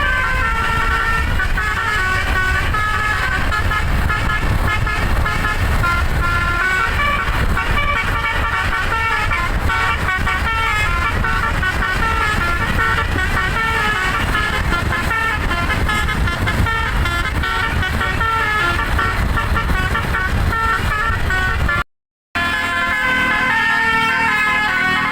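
Bus telolet musical air horn playing a fast melody of stepping horn notes over a steady low rumble. Near the end a short silence breaks it, then the horn melody resumes without the rumble.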